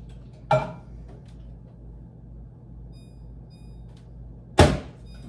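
Two sharp clinks from a bowl of melting chocolate chips being handled and set down, about four seconds apart, the second louder, over a steady low hum.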